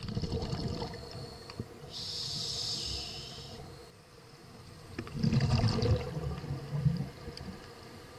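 Scuba regulator breathing picked up underwater: a hissing inhale about two seconds in, then a louder rumble of exhaled bubbles from about five to seven seconds.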